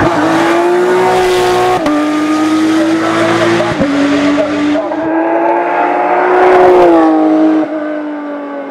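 Porsche 997 GT3 Cup race car's flat-six engine at full throttle. The pitch climbs and drops sharply twice as it shifts up, then climbs again to its loudest. Near the end the note falls and fades as the car draws away.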